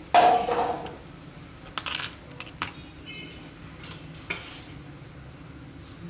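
A small metal object clatters down with a brief ring, followed by a few lighter metallic clicks and clinks.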